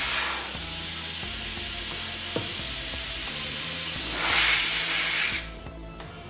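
Compressed air hissing loudly and steadily into a low-profile tyre through a valve stem with its core removed for full flow, then cutting off suddenly about five seconds in.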